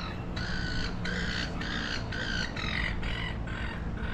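Seagulls squawking, a noisy run of short calls at about two a second.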